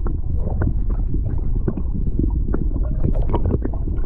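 Muffled lake water heard underwater through a submerged camera: a steady low rumble with frequent sharp clicks and crackles of water and bubbles moving against the housing.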